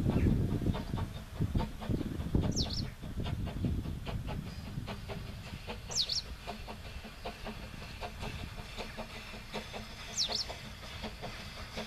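Narrow-gauge steam locomotive Dolgoch, an 0-4-0 well tank, working a train towards the listener, its exhaust beats coming as a quick even rhythm. A bird gives a short, high, sweeping call three times, about every four seconds.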